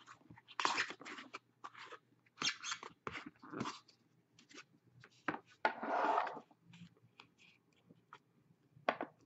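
Hands easing a tightly packed stack of trading cards out of a small black box: irregular rustles, scrapes and light knocks of card and box, with one longer sliding scrape about six seconds in.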